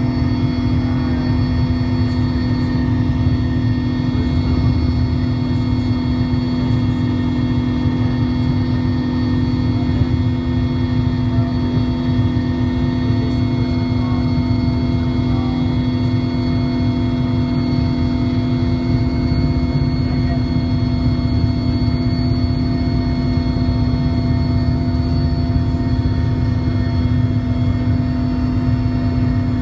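Cabin noise of a Mil Mi-17 helicopter in flight, from its twin turboshaft engines and rotor: a loud, steady drone with a strong constant hum and several steady higher tones above it.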